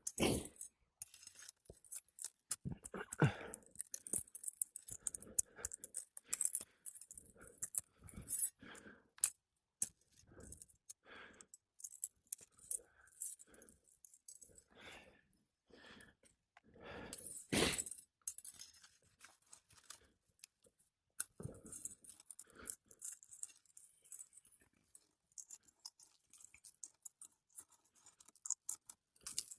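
Flat pry bar working under old, brittle asphalt 3-tab shingles to pull roofing nails: scattered metal clinks, scrapes and crackles, with a louder knock at the start and another about 17 seconds in.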